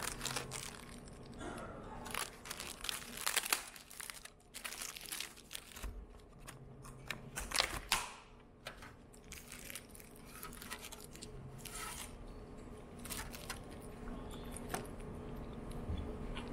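Clear plastic film wrapper of a convenience-store rice ball (onigiri) crinkling and tearing as it is pulled off by hand, in irregular sharp crackles.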